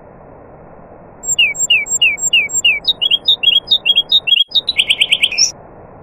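Nightingale singing one phrase that starts about a second in: five clear down-slurred whistles, then quicker, higher notes, ending in a fast trill. A steady hiss runs underneath.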